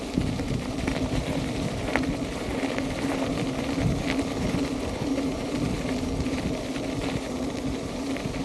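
Electric unicycle rolling steadily over a gravel path: a constant motor hum over a rough rumble of tyre on gravel and wind, with a few faint ticks of grit.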